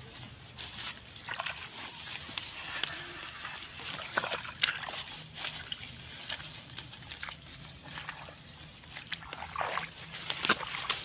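Footsteps wading through a wet rice paddy: irregular swishes and squelches as feet push through mud and rice stalks.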